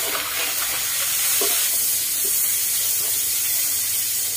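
A pot of freshwater basket clams (hến) at a rolling boil: a steady, bright hiss of boiling water and steam as the clams are stirred and scooped, with a couple of soft knocks.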